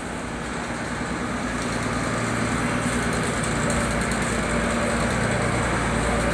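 A houseboat's engine running steadily: a low, even drone that grows a little louder over the first couple of seconds, then holds.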